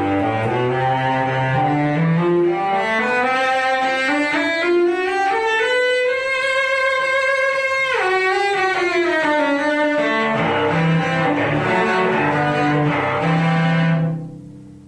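Carbon fibre cello being bowed in a slow melody: the notes climb to a long held high note about halfway through, then step back down and fade out near the end.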